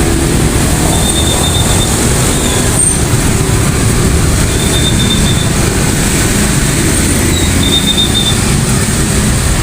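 Loud, steady rumble of a heavy vehicle passing close by, with three short high squeals a few seconds apart.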